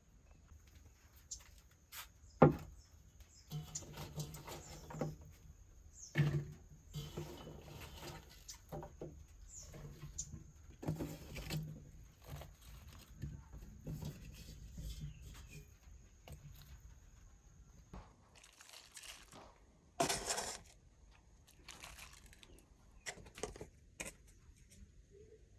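Knotted taro leaf bundles and stem pieces being handled and placed in a clay pot: soft knocks, rustles and crunches, with a sharp knock a couple of seconds in and a brief louder rustle near the end. A steady high insect trill in the background.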